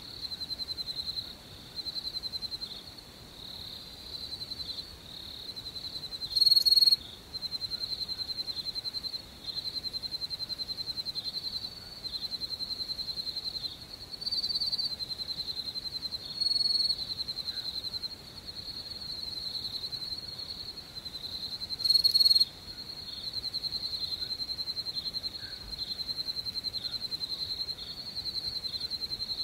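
Crickets chirping in a steady chorus of fast trills, all at one high pitch. Several louder, closer bursts stand out, the loudest about three quarters of the way through.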